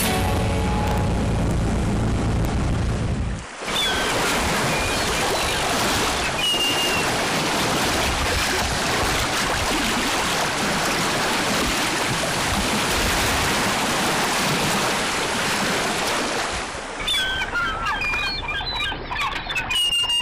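Steady rush of wind and sea water along a sailing yacht under way, taking over after music that cuts off about three and a half seconds in. High chirping tones come in near the end.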